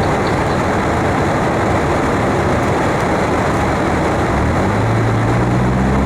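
Steady, loud rushing noise, joined about four seconds in by a low, steady droning hum.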